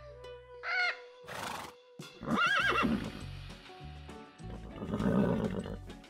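A horse neighs, a loud wavering whinny about two seconds in, followed by a second, breathier call around five seconds, over background music. A short bird call, from a white cockatoo, comes just before the first second.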